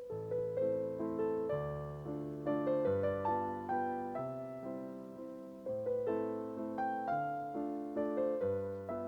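Background piano music: a gentle melody of struck notes over long held bass notes.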